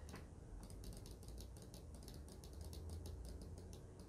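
ROCCAT Kain 200 AIMO gaming mouse buttons clicked in a fast, faint run of light clicks, several a second.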